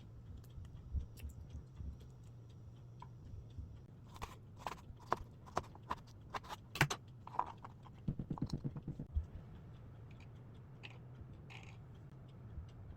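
Knife knocking on a wooden cutting board: single chops about twice a second, then a quick run of about ten rapid chops about eight seconds in.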